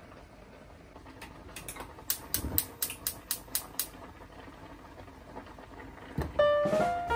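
A quick series of short, sharp clicks or taps, about four a second, for a few seconds, then a few lighter ones. Music with chiming notes starts near the end.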